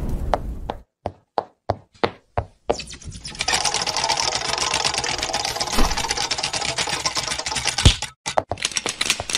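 Cartoon sound effects: the tail of a blast fades out in the first second, then come a handful of separate clicks. A fast, steady mechanical rattle follows for about five seconds, with a couple of thumps in it, and a few more clicks close it.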